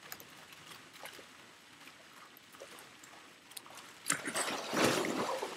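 A person jumps onto a surfboard floating in a swimming pool: a sharp slap on landing about four seconds in, then a loud splash of water lasting about a second and a half.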